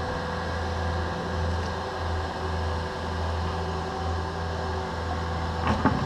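Diesel engine of compact Cat earthmoving equipment running steadily, with a short burst of clanks and knocks near the end as the mini excavator's bucket comes down into the dirt.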